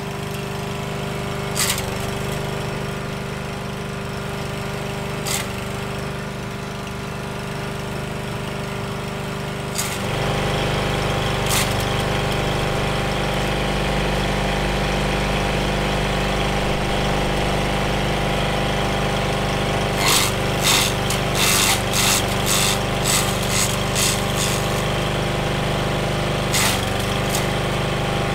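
Petrol rotary lawn mower engine running steadily, its note stepping up louder about ten seconds in. Sharp cracks come as the spinning blade strikes branches fed under the deck: a few single strikes, then a rapid flurry in the last third.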